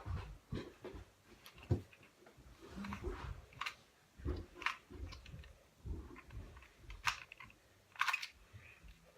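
Plastic 2x2x2 Rubik's cube being twisted to scramble it: irregular clicks and clacks of the layers turning, with a few sharper snaps around the middle and near the end.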